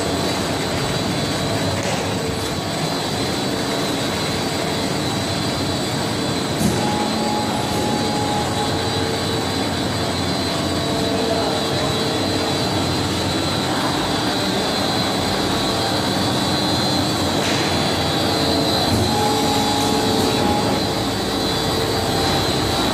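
Spindle hydraulic rotary veneer peeling lathe running, turning a pine log against its knife to peel thick veneer: a loud, steady mechanical noise with a high whine and a single sharp knock about seven seconds in.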